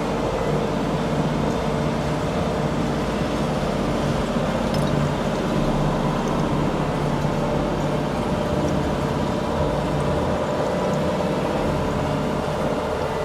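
Heavy machinery running steadily: a continuous, even engine drone with a constant hum.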